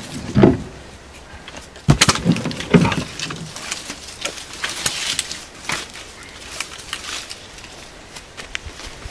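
Dry sticks and branches cracking and snapping as firewood is gathered by hand: a cluster of sharp cracks about two seconds in, then scattered smaller snaps and rustling.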